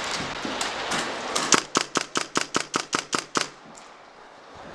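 Airsoft gunfire: a few scattered shots, then a fast, even string of about a dozen sharp snaps at roughly six a second, stopping a little past the middle.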